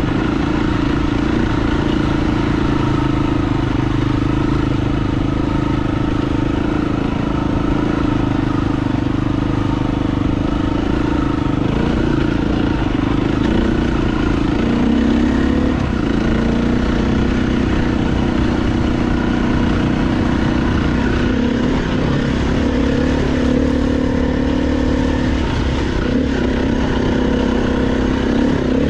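KTM dirt bike engine running steadily while under way, its revs rising and falling slightly a few times.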